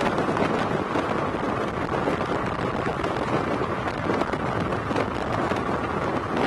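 Strong thunderstorm wind blowing steadily across the microphone, a dense rushing noise with no letup.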